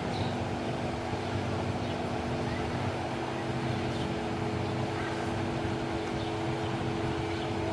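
Stretch limousine built on a Dodge Charger, its engine running low and steady as it creeps slowly along the street.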